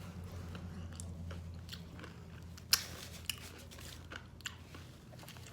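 Close-up mouth sounds of a person biting and chewing crispy fried chicken, crackly crunches with a sharp loud bite about three seconds in.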